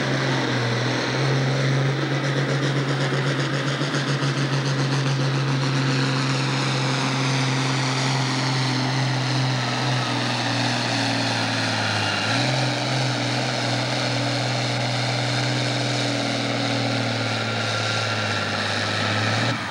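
Farm-stock diesel tractor's engine held at full throttle under heavy load while pulling a weight-transfer sled, a steady deep drone. Its pitch dips briefly about two-thirds of the way through, then recovers. The engine cuts back at the very end as the tractor makes a full pull.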